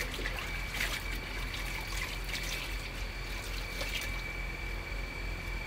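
A wiping cloth being rinsed in water: trickling and dripping, with a few brief splashes about one, two and four seconds in.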